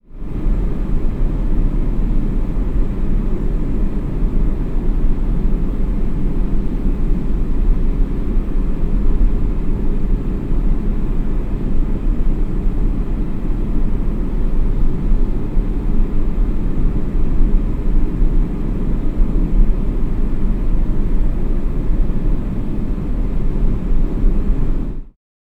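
Aircraft cabin noise: a steady, even low rumble with a fainter hiss above it, starting and stopping abruptly.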